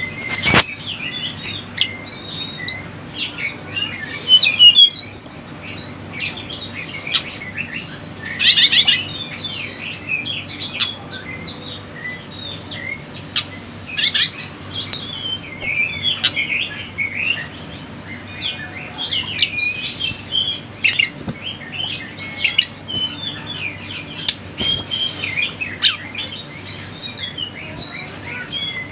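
Tledekan gunung birds calling busily: many short, overlapping chirps and quick whistled notes, some sliding up or down in pitch, over a faint steady low hum.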